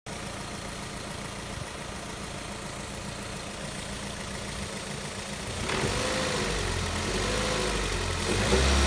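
Car engine running with a knock, heard from outside the car. About six seconds in it gets louder, with a deeper hum and a wavering pitch.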